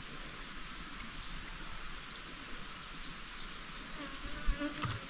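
Outdoor ambience: a steady hiss with a few short, high, rising bird chirps and a thin high whistle near the middle.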